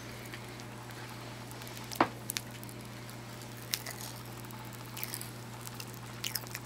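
Pop Rocks popping candy crackling: sparse small pops and clicks at irregular intervals, the sharpest about two seconds in, over a faint steady hum.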